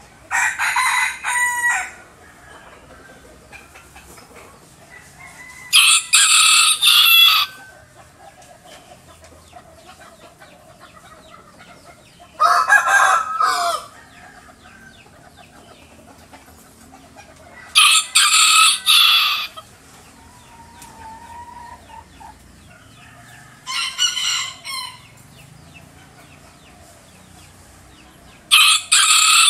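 A rooster crowing over and over: six crows about every six seconds, each about one and a half seconds long, the last starting near the end.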